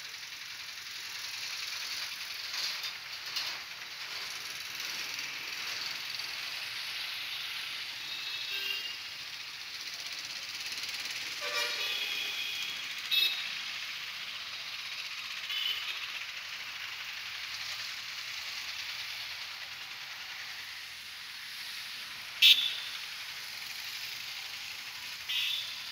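Steady hiss of street traffic, broken by several short, high horn toots from passing vehicles, one of them sharp and loud near the end.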